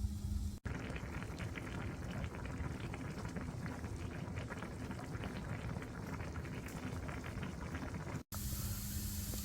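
Freshwater eel broth boiling hard in a wood-fired cast-iron cauldron, a dense, crackling bubbling. The audio cuts out briefly after about half a second and again near the end, and a steady low hum runs on either side of the bubbling.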